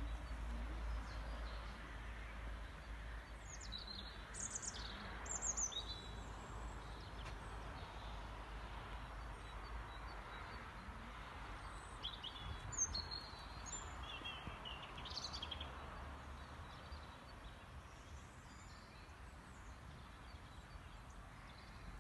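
Small songbirds chirping and calling, a few seconds in and again around the middle, over steady outdoor background noise with a low rumble underneath.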